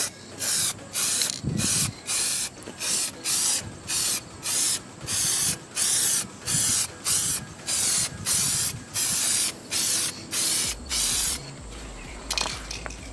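Aerosol can of touch-up car paint spraying in a quick series of short hissing bursts, a little under two a second, then stopping: a test spray to check the colour match.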